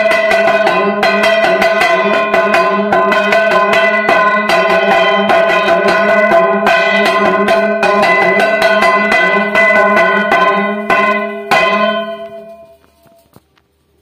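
Hand-held bell-metal plate gong (kansar) beaten rapidly with a stick, about four or five strikes a second, its ringing carrying on between strikes. It stops with a last hard strike near the end and the ring dies away. Rung for the Hindu evening lamp offering (sandhya).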